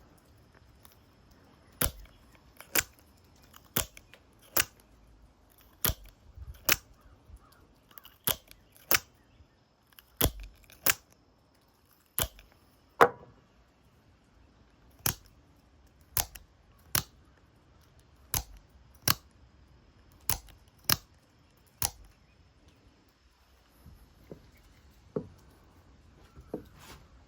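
A Microtech out-the-front automatic knife fired out and back over and over: about two dozen sharp spring-driven snaps, mostly in pairs a second or less apart as the blade deploys and retracts, the last few fainter. This is test-firing just after oiling, to check that the mechanism works without misfires.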